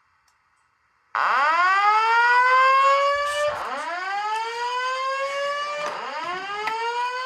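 Simplex voice evacuation speakers sounding a whoop evacuation tone: repeated upward pitch sweeps, about one every two and a half seconds, starting about a second in after a short silence.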